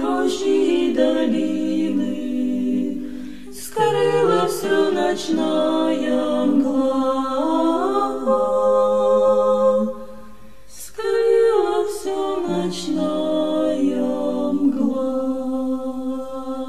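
Choir singing a cappella in slow, held chords, phrase by phrase, with short breaks between phrases about 3.5 seconds in and about 10 seconds in.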